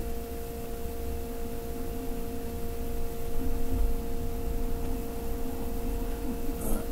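A steady background hum with a constant, faint pure tone running through it over low rumbling noise.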